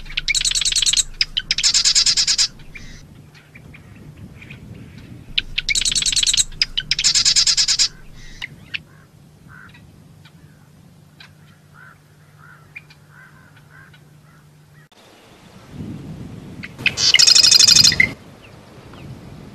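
Marsh wren singing: five rapid trills of quickly repeated notes, each about a second long. The first four come in two pairs, and the last comes near the end, with a few faint short notes in between.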